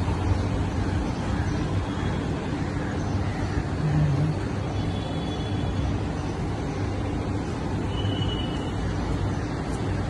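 Steady road traffic noise with a low engine hum.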